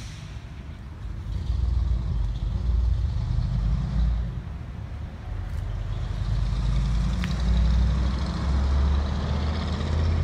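Wind buffeting the microphone: a gusty low rumble that swells about a second and a half in and rises and falls.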